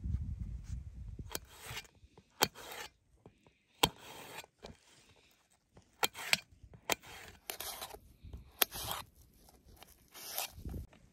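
A knife cutting a crisp apple into pieces on a stainless steel camping plate: a series of sharp clicks as the blade meets the plate, each followed by a short scraping cut, at irregular intervals of about a second.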